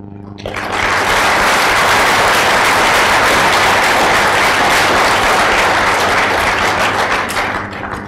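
Audience applauding, starting about half a second in and dying away near the end.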